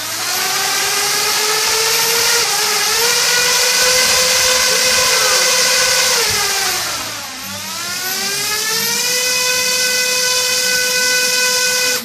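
Parrot Bebop quadcopter's four electric motors and propellers running while the drone is held down by hand, a loud high whine. The pitch climbs as the motors spin up, holds steady, dips and climbs back about seven seconds in, then cuts off suddenly at the end.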